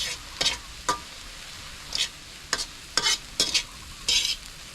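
Utensil stirring and scraping food in a frying pan, in irregular short strokes over a steady faint hiss.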